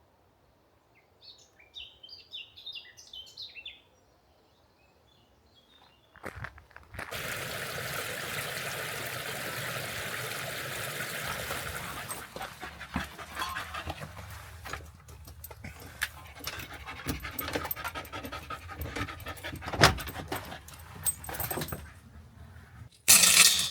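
A few short bird chirps, then a dog panting close by, with rustling and small clicks; a loud bump near the end.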